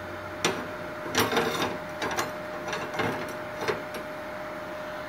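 Aluminium plates clattering and knocking on the workbench as they are moved, about five knocks over three seconds, over the steady whine of the switched-on MultiPro MIG-MMA/TIG 160 inverter welder.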